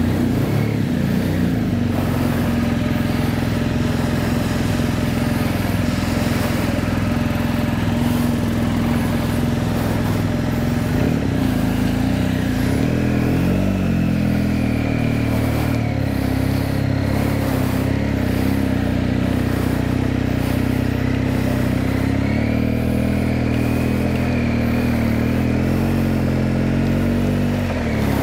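BMW R 1250 GS Adventure's boxer-twin engine running at low road speed, heard from the bike itself, its note rising and falling a few times as it pulls away and slows.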